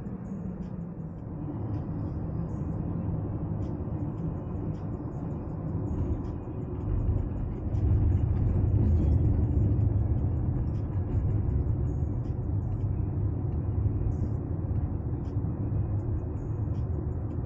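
Steady road and engine rumble of a moving car, heard from inside the cabin, growing louder about seven seconds in.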